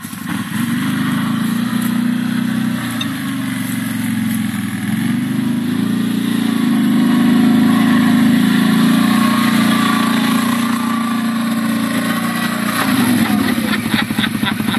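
CFMoto quad bike's engine working steadily as the ATV climbs a steep slope, growing louder as it comes closer. Near the end it drops to a close, evenly pulsing idle.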